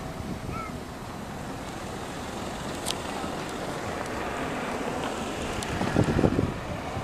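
Wind blowing on the camera microphone: a steady rushing noise, with a stronger low buffeting gust about six seconds in.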